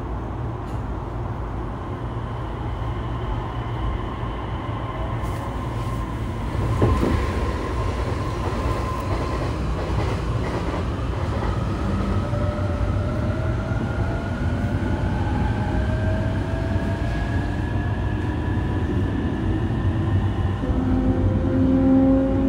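Running sound of a JR East E233 series 3000 EMU heard from inside the car as it pulls away and accelerates. A steady wheel and track rumble carries the inverter and traction-motor whine, which climbs slowly in pitch. There is a single knock about seven seconds in, and near the end the onboard announcement chime begins.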